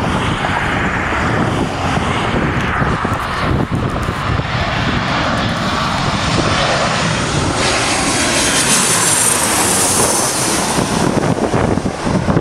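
Boeing P-8 Poseidon's twin CFM56 turbofan jet engines running in a loud, steady roar as the aircraft flies low on landing approach. A high whine joins in the second half and slides down in pitch as the jet passes overhead.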